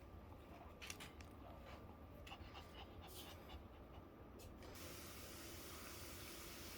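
Near silence: faint room tone with a few soft clicks, turning to a steady faint hiss about five seconds in.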